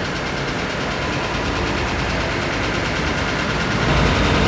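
An engine running steadily in the background, growing a little louder near the end.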